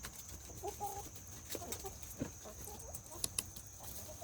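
Chickens clucking in short scattered calls. Two sharp clicks come in quick succession a little past three seconds in.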